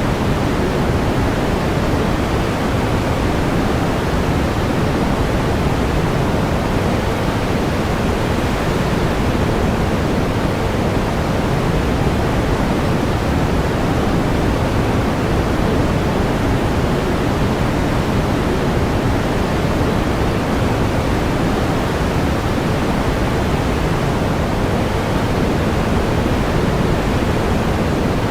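Steady pink noise: an even, unchanging hiss weighted toward the low end, with no tones or events.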